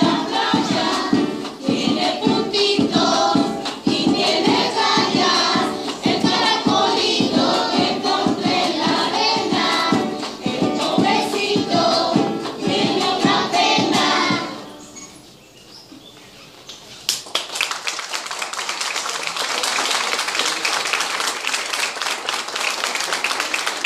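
Young children singing together in chorus to a strummed acoustic guitar with a steady beat. The song ends about fifteen seconds in, and after a short lull a group starts clapping and keeps it up.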